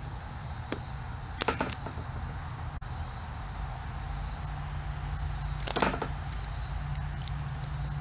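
Steady high-pitched insect chorus, with a few short sharp clicks from handling, about one and a half seconds in and again near six seconds.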